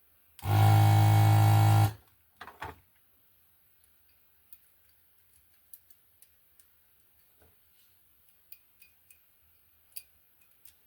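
Desoldering gun's vacuum pump buzzing for about a second and a half as it sucks solder from the pins, followed by a few faint clicks and taps.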